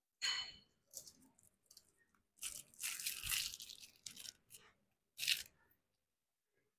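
Plastic wrapping rustling and tearing as a drinking straw is unwrapped, in several short crinkly bursts with one longer stretch in the middle and a sharp crackle near the end.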